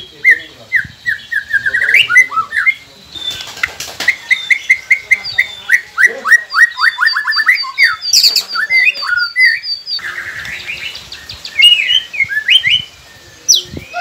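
White-rumped shama singing: a loud, varied song of fast runs of short repeated notes and whistled phrases, with a brief lull about two-thirds of the way through.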